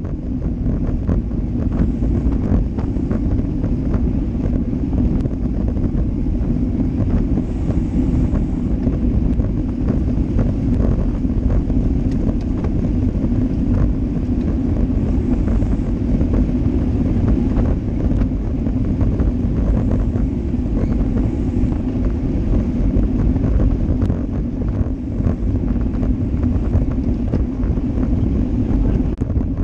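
Wind rushing over the microphone of a road bike's on-board action camera while riding in a pack, with a steady low rumble of tyres on asphalt and scattered small clicks and rattles.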